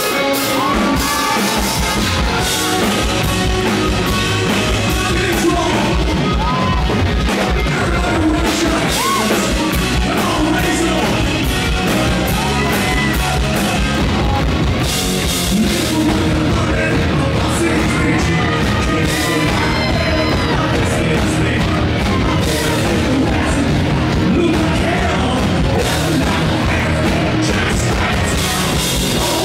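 A hard rock band playing live and loud through a PA, with electric guitar, bass guitar and drum kit, and a male lead singer on a handheld microphone, recorded from the audience.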